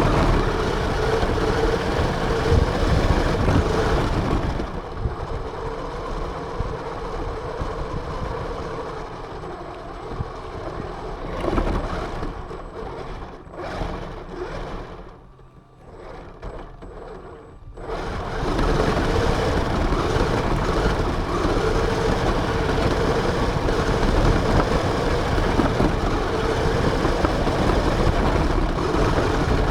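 Radio-controlled car running, its motor and drivetrain heard from a camera mounted on the car. It eases off about a third of the way in, nearly stops around the middle, and picks up to a steady run again just past halfway.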